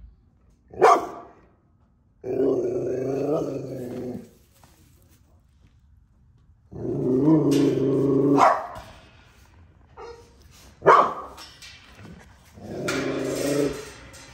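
Bully-type dogs barking and growling: three sharp single barks and three long, low, drawn-out growls between them, one growl ending in a bark.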